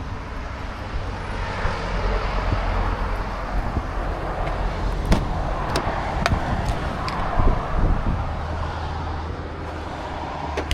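Outdoor street and traffic noise with a steady low rumble, and a handful of sharp clicks and knocks about halfway through.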